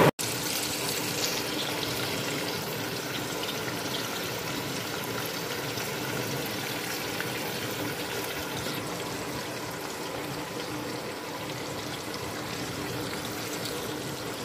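Chicken pieces frying in hot oil in a karahi over high heat: a steady sizzle and bubbling.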